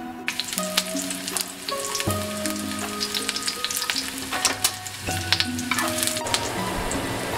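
Sliced aromatics and chopped green onion sizzling and crackling in hot oil in a nonstick frying pan, stirred with a spatula. The crackling starts right at the beginning. Background music plays over it.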